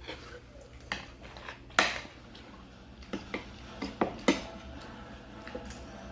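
Eating utensils clicking and clinking against dishes while eating, in a string of separate knocks; the sharpest comes about two seconds in.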